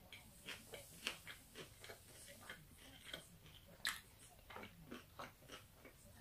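Close-miked mouth sounds of a person chewing a mouthful of chicken fajita wrap: irregular wet clicks and smacks, about two to three a second, the loudest about a second in and again near four seconds.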